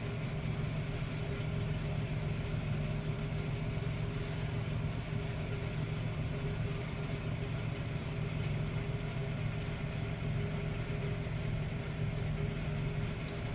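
Car engine idling steadily: a low, even hum with a few faint light clicks over it.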